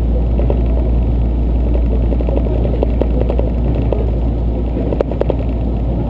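Steady low rumble of a diesel express train running, heard from inside the passenger car. Scattered clicks come in the middle, with a sharper knock about five seconds in.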